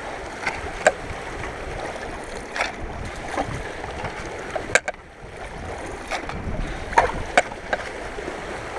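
Shovel digging into gravel in a shallow streambed, its blade scraping and clinking on stones in short strokes, over the steady sound of the running stream. The gravel is loose: easy digging.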